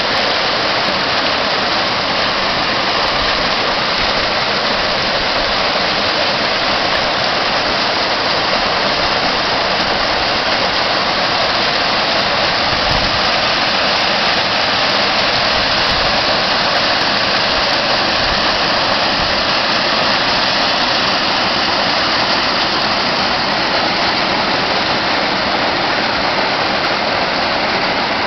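Hot-spring water pouring over granite boulders into a rock pool as a natural hydrojet, a steady splashing rush.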